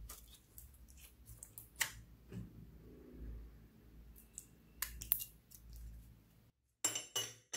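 Clear slime with fruit-slice charms being stretched and squished by hand, giving scattered wet clicks and small pops. Near the end comes a louder run of sticky crackles.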